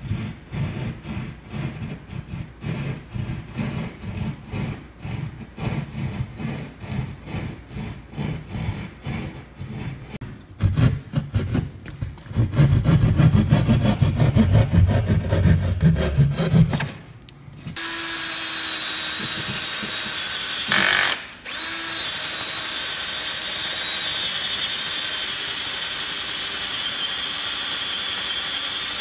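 A hand drywall saw cutting through drywall in short back-and-forth strokes, growing louder and faster about halfway. Then a cordless drill runs steadily as it bores into the wood behind the opening, stopping briefly once.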